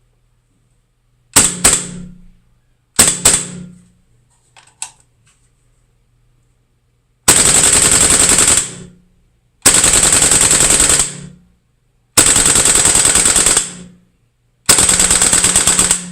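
GHK AK gas-blowback airsoft rifle with a W&S full-travel bolt kit firing in a bathroom, each shot ringing off the walls: two short groups of shots, a small click, then four long full-auto bursts of about a second and a half each, evenly spaced.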